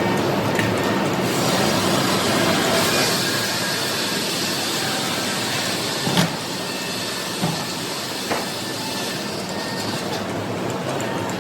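Sawmill machinery and its chain conveyor running steadily, a rattling mechanical din, with three short heavy knocks about six, seven and a half, and eight seconds in.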